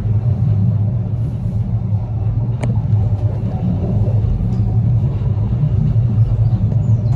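Steady low rumble of road traffic, with a single sharp click about two and a half seconds in.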